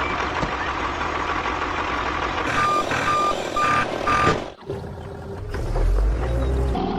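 Heavy vehicle engine running, with a reversing alarm beeping four times, about two beeps a second, a little past the middle. The sound then cuts off abruptly, and another engine comes in, running lower.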